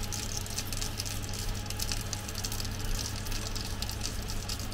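Hasselback potato sizzling and crackling on a parchment-lined baking tray in a hot oven, over a steady low hum from the oven's fan.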